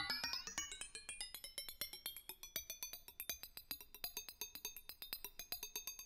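Electronic music made from NMR spectroscopy data: a rapid, even run of short, high synthesized notes, gradually getting quieter.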